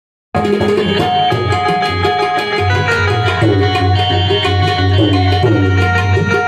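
Instrumental music with tabla drumming under held melodic notes, starting abruptly a moment in.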